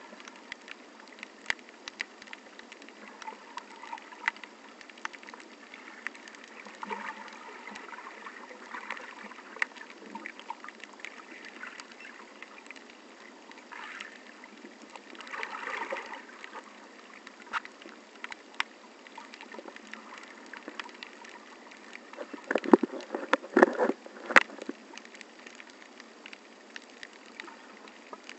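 Underwater sound picked up through a small action camera's waterproof housing while snorkeling: a steady watery hiss scattered with sharp clicks. There is a short louder swell of noise around the middle, and a louder cluster of knocks and splashy noise about four-fifths through.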